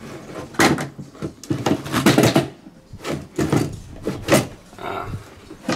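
Old electronic parts and wiring being shifted by hand inside a wooden equipment box: irregular knocks, clacks and rattles, some sharp and loud.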